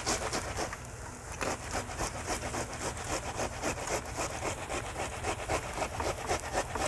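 Fresh tomato being grated by hand on a flat metal grater: quick, even rasping strokes, about three to four a second.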